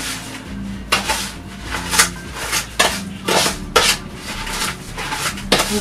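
Metal cutlery scraping and knocking against a plastic mixing bowl in irregular strokes, a few each second, while sugar and margarine are creamed together by hand.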